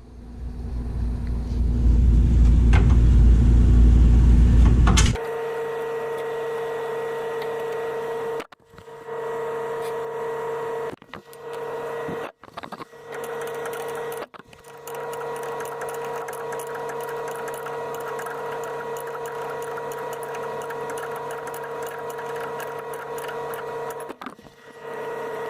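A loud low rumble that builds up and cuts off suddenly after about five seconds, then a steady machine hum at a constant pitch, broken off briefly several times.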